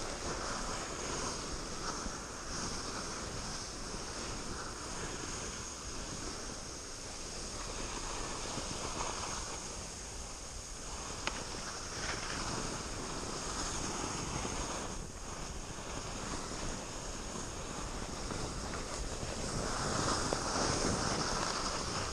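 Wind buffeting a helmet camera's microphone: a steady rushing that swells louder near the end.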